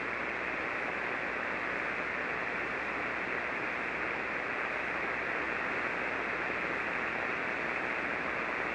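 Steady hiss of HF band noise from a ham receiver tuned to an empty 40-meter single-sideband channel, muffled, with its treble cut off.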